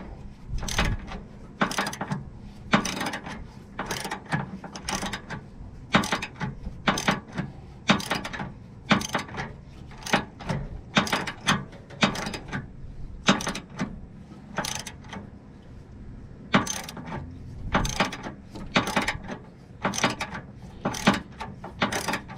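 Hand socket ratchet clicking in repeated short strokes, roughly two a second, as it backs out a 5/8-inch bolt.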